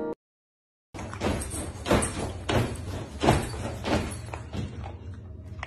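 A dog at its bowl on a floor: a regular series of soft noisy strokes, about three every two seconds, over a low steady hum. Just before this, background music cuts off into a moment of silence.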